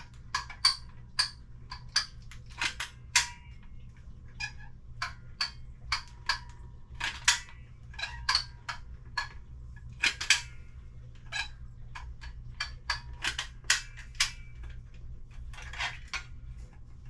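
Caulking gun and ceramic tile pieces being handled while construction adhesive is applied: a run of irregular sharp clicks and light clinks, some with a brief ring, over a low steady hum.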